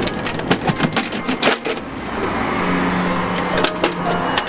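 Sharp metallic clicks and clinks of tools and parts being handled during truck engine disassembly, several in the first two seconds. About halfway through, a steady low hum sets in and lasts a second and a half, with a few more clicks near the end.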